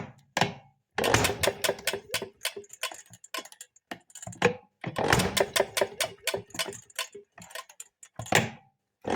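1932 Maytag two-stroke washing-machine engine being turned over for a spark test: three runs of rapid sharp clicking, the last one brief, as the flywheel spins and the plug sparks.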